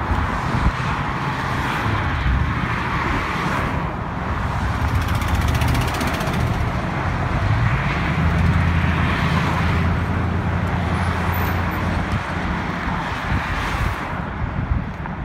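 Steady road-traffic noise, with a low engine hum that grows stronger around the middle and then fades.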